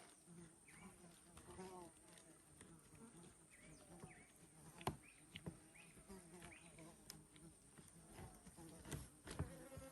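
Faint steady high-pitched insect drone, with scattered short chirping calls and a few sharp clicks.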